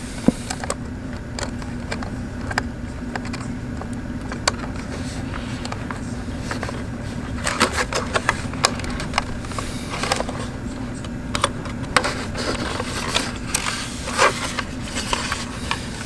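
Scattered small clicks and taps of hard plastic as the FrSky Taranis X9D Plus transmitter's case and toggle switches are handled and fitted together, busiest in the second half, over a steady low hum.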